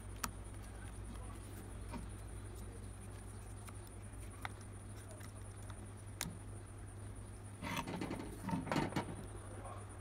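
Handling noise as the metal top cap is worked back onto a fabric-covered portable speaker: a few sharp clicks, then a louder stretch of scraping and rustling about eight seconds in. A steady low hum and a faint high whine run underneath.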